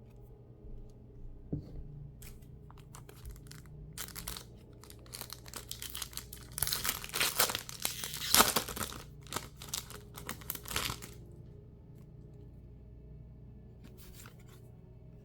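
Foil wrapper of a Pokémon mini booster pack being torn open and crinkled by hand, in scattered rustles that build to a dense burst of tearing and crinkling in the middle, then a brief rustle near the end.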